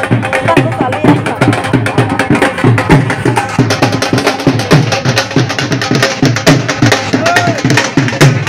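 Loud percussion-led music: a fast, steady run of drum and knocking strikes, mixed with the voices of a crowd.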